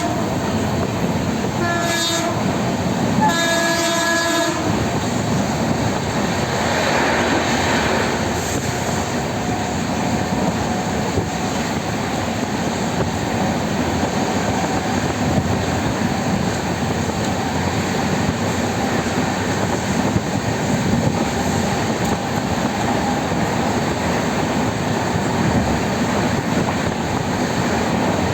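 Train horn sounding a short blast and then a longer one, followed by the steady noise of the train running along the rails.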